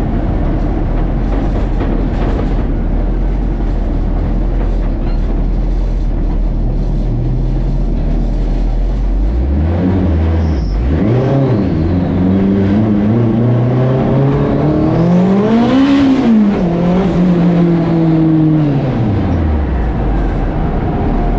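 Turbocharged Honda K24 inline-four engine heard from inside a stripped-out Civic's cabin while driving. It runs at a steady low rumble at first, then the revs rise and drop back in a few short pulls, climb in one longer pull to a peak about two-thirds of the way through, hold briefly, and fall away near the end.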